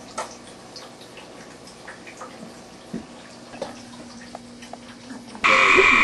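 Scattered faint clicks, then about five seconds in a male gray tree frog abruptly starts calling with a loud, steady trill.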